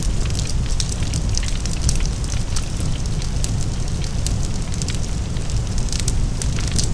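Large fire burning: a steady deep rumble under dense, irregular crackling and popping.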